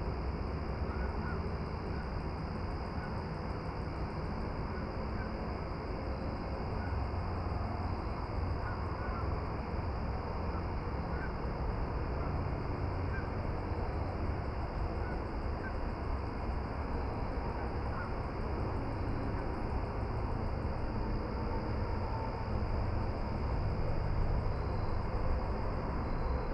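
Steady low rumble and hiss of outdoor ambience with a thin steady high whine, and faint short bird calls scattered through.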